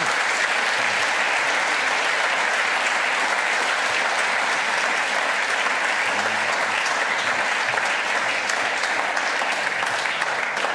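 Audience applauding: many people clapping steadily in a hall, fading out just after the end.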